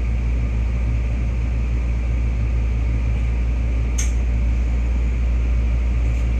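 Steady low hum and whir of a stationary BEC819 DENCHA battery-electric train's onboard equipment while it waits at a station, with one sharp click about four seconds in.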